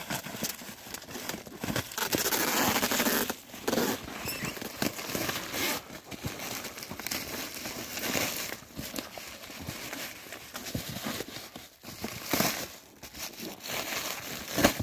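Plastic wrapping crinkling and tearing as a cardboard parcel is cut open and unwrapped by gloved hands, in irregular rustles, loudest about two to four seconds in.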